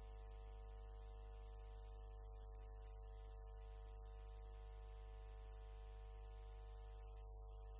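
Near silence with a steady, unchanging electrical hum and its overtones in the recording.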